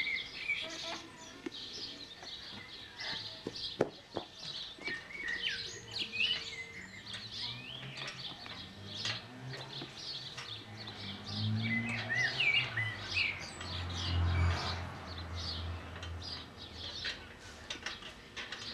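Garden birds chirping and singing in many short calls, with a low rumble that swells and fades a little past the middle.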